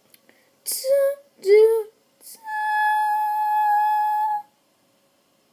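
A girl's voice singing two short sliding notes, then holding one high, steady 'aah' for about two seconds, a sung fanfare to present something.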